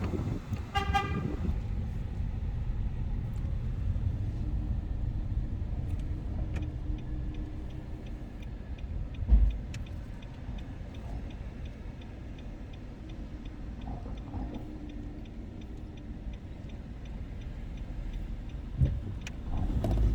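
Car driving, heard from inside: steady engine and road rumble. A short pitched toot comes about a second in, a thump around nine seconds, and light, even ticking runs through the second half.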